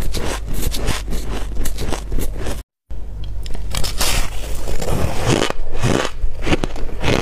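Shaved ice being bitten and chewed: a dense run of crisp, loud crunches. Cuts to silence for a moment about a third of the way in, then more crunching bites into a packed chunk of shaved ice.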